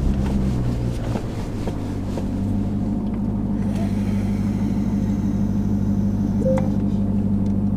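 Dodge Durango SRT Hellcat's supercharged 6.2-litre V8 running at a steady pitch while the SUV is driven slowly, a low even drone with no revving.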